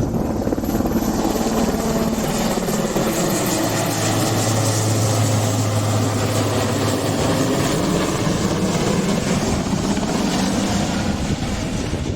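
Helicopter running close by: loud, steady rotor and engine noise, with a deep hum swelling between about four and seven seconds in.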